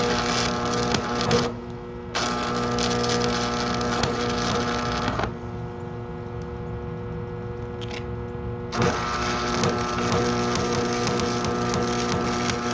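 Stick welding with 7018 rod: the arc crackles and hisses in runs, stopping for about three seconds in the middle before starting again. Underneath, an engine runs steadily.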